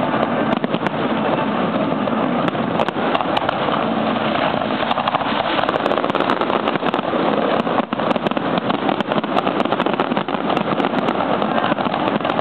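Fireworks going off in rapid succession, a dense, unbroken run of overlapping bangs and crackles.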